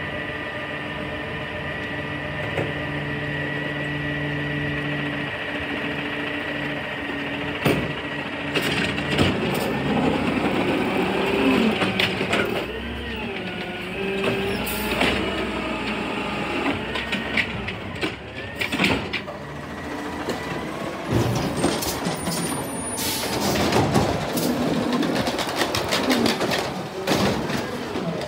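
Automated side-loader garbage truck running while its hydraulic arm lifts and tips carts into the hopper. A steady hum gives way to a whine that rises and falls in pitch about halfway through. In the second half come many sharp clanks and bangs as the carts are shaken out and set down.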